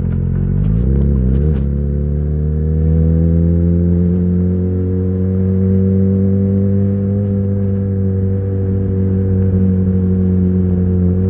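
Yamaha XJ6's 600 cc inline-four running through an Ixil full exhaust with the dB killer fitted, under way on the road. The engine note dips and wavers about a second in, then holds and rises slowly as the bike pulls.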